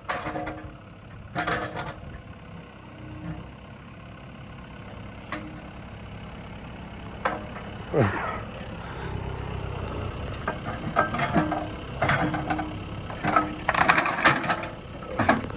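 Excavator engine running under hydraulic load, getting louder partway through, with scattered sharp metal clanks and crunches as the arm comes down on a lawn mower, and a quick run of hits near the end.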